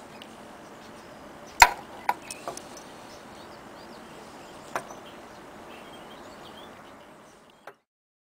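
A sharp click about one and a half seconds in, then a few lighter clicks and one more near five seconds, over a steady outdoor background with faint bird chirps; the sound fades out near the end.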